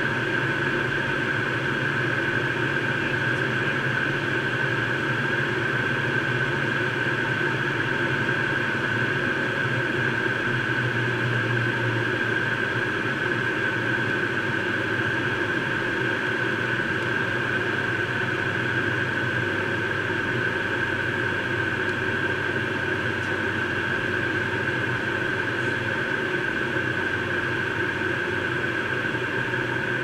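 Cockpit noise of a Learjet 35A in flight: a steady rush of airflow and its Garrett TFE731 turbofan engines, with a constant high whine over it.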